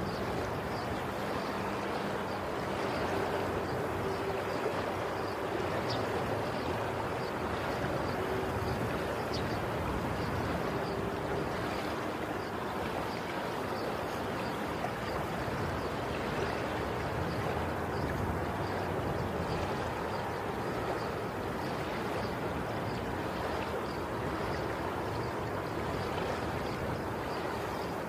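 Steady rushing water noise.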